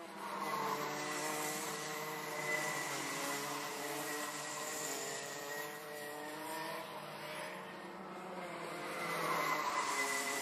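Rotax 125cc two-stroke kart engines racing, several karts at once, their pitches rising and falling as they accelerate and lift off. One gets louder near the end as it passes close by.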